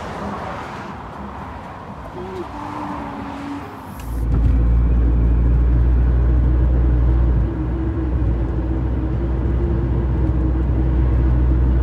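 For about four seconds, outdoor background noise beside a road. Then, abruptly, the steady low rumble of road and engine noise inside a moving car, with a faint steady hum above it.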